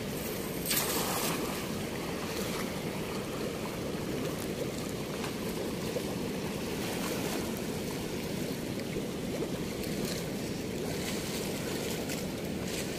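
Steady rush of water pouring through a weir's floodgate, with a short louder burst of noise about a second in.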